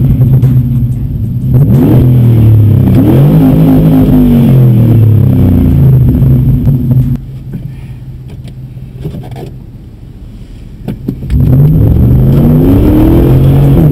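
2000 Dodge Dakota's 4.7L Magnum V8 exhaust under acceleration, its pitch rising and falling through gear changes. About seven seconds in the throttle closes and the sound drops to a much quieter coast. Near the end it comes back loud with the pitch climbing again.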